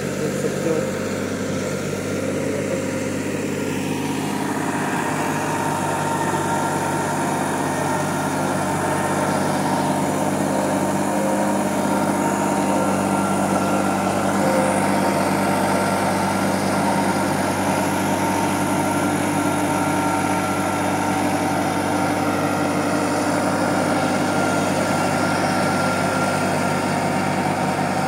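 New Holland 3630 tractor's three-cylinder diesel engine running steadily under load, driving a super seeder (rotary tiller with seed drill) through paddy stubble to sow wheat.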